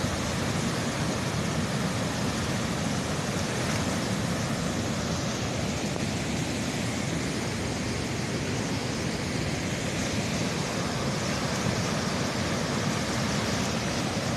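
Floodwater rushing and pouring in a steady, unbroken rush of noise.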